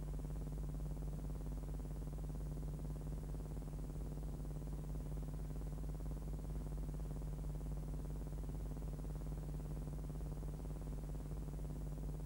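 Steady low electrical hum with a faint hiss above it, with no other sound.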